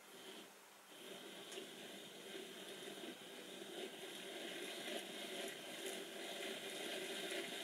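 Faint whirring hiss of a DCC-ready OO-gauge model locomotive's motor and gears, its wheels turning on rolling-road rollers. It starts about a second in and grows slowly louder as the model picks up speed.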